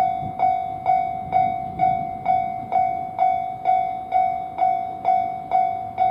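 Japanese railway level-crossing warning bell ringing its 'kan-kan' alarm: a steady run of ringing strikes, a little over two a second, each on the same pitch and fading before the next.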